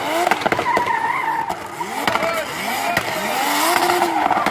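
Drift car's engine revving hard in repeated rising climbs that level off, over the squeal and hiss of tyres spinning and sliding on the pavement, with a few sharp cracks.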